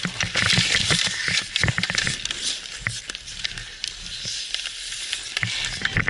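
Hockey skate blades scraping and carving on outdoor ice, a steady hiss that is strongest in the first half, with hockey sticks and puck clacking throughout, heard close up from the skating player's helmet.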